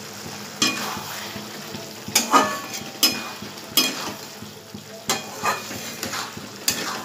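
Spatula scraping and knocking against a metal pan while stirring a thick egg-and-potato curry gravy that sizzles in the pan. About eight uneven strokes over a steady sizzle.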